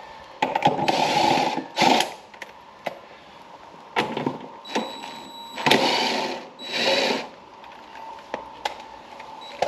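Cordless drill run in several short bursts, each about a second or less, on a blade bolt on the underside of a zero-turn mower deck, with a few metallic clicks between the runs.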